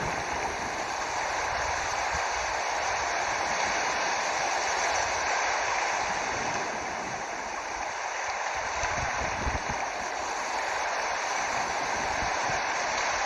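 Water flowing steadily, a continuous rush of running water, with a few low rumbles around the middle.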